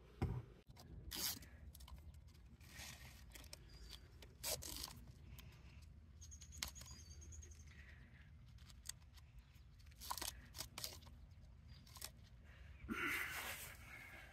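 Faint handling noises of a plastic trail camera and its webbing strap being fastened around a tree trunk: scattered clicks and scrapes, with a longer rasp near the end.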